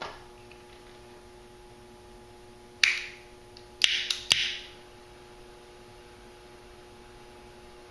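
A lighter being struck: a sharp click with a short hiss about three seconds in, then a second try a second later with two clicks and a longer hiss.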